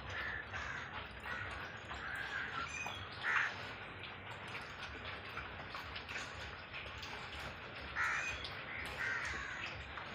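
Crows cawing, a series of short harsh calls with the loudest about three seconds in and again about eight seconds in, over a steady low rumble.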